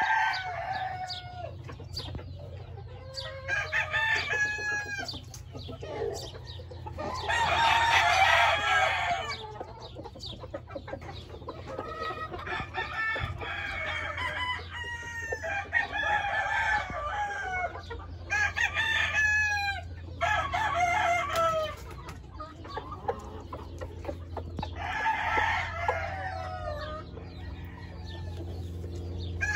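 Gamefowl roosters crowing again and again, a call every few seconds, with chickens clucking in between.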